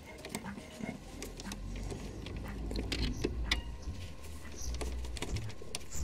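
Scattered small clicks and scrapes of a car key and a thin release wire being worked in a VW Golf Mk5's ignition lock cylinder, over a low rumble that starts about a second and a half in.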